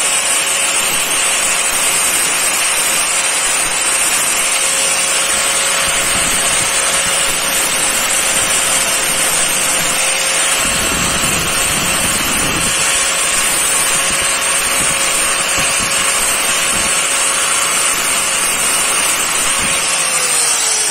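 Electric power tool with a sanding disc running at a steady speed while sanding a plastic weld, with a rougher patch of contact about halfway through; the motor begins to spin down right at the end.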